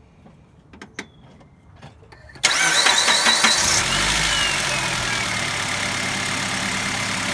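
A few faint clicks, then a Honda Element's 2.4-litre four-cylinder engine cranks on the starter for about a second, catches and settles into a steady idle. A whine falls in pitch as it settles. This is the first start on a freshly fitted serpentine belt.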